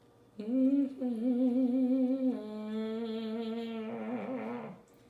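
A woman humming one long, closed-mouth note for about four seconds. The pitch wavers at first, settles a little lower and steadier about two seconds in, and wobbles again just before it stops.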